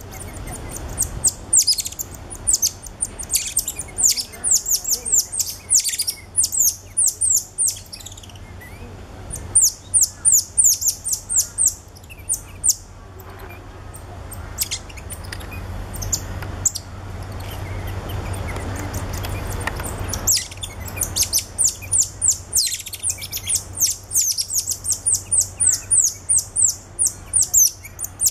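Cotton-top tamarins chirping: rapid runs of short, very high-pitched falling chirps in bouts, with a quieter lull around the middle before the chirping picks up again.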